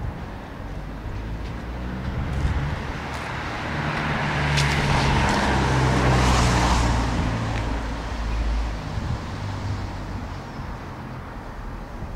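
A motor vehicle passing by: a low engine rumble and a hiss that swell to a peak about halfway through, then fade away.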